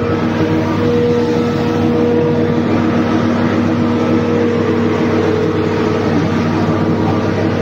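Maize forage harvester running steadily as it cuts standing maize: a loud, unchanging engine and machinery sound with a steady hum.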